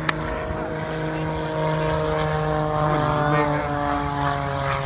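Airplane engine drone from an aerobatic plane overhead, a steady tone slowly falling in pitch as it flies away, with voices in the crowd and a sharp click at the start.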